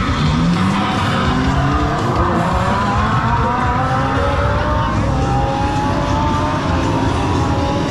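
Car engine sound from a Volkswagen Beetle scare prop, revving with a pitch that rises slowly and steadily over several seconds.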